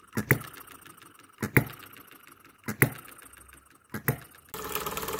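Miniature hit-and-miss engine turning over slowly, with a sharp double click about every one and a quarter seconds, four times. About four and a half seconds in, a steady, fast mechanical running sound from a small model engine takes over.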